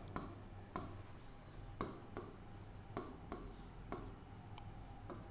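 Pen tip tapping and scratching on an interactive whiteboard's screen as a word is handwritten: a string of faint, irregular clicks.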